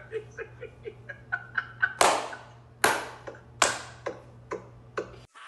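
Men laughing over a video call, rapid bursts of laughter, then three loud sharp outbursts about two seconds in, spaced under a second apart, tapering into smaller ones, with a steady low hum underneath.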